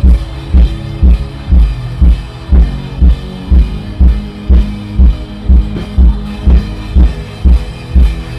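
Background music with a steady kick-drum beat, about two beats a second, over sustained bass notes.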